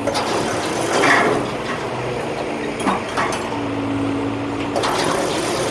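Cotton harvesting machinery running: a low hum that comes and goes under a steady rushing noise, which swells about a second in, with a few short clicks.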